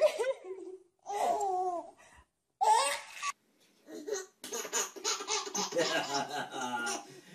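A baby laughing in short bursts, broken by abrupt silent gaps, then laughing more steadily over the last few seconds.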